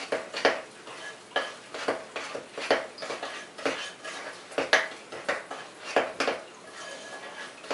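A spoon stirring thick peanut butter cookie batter in a mixing bowl, scraping and knocking against the bowl in uneven strokes about once a second.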